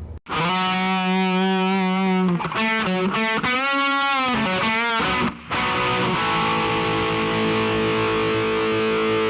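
Outro music: distorted electric guitar playing a few notes, then a long held chord.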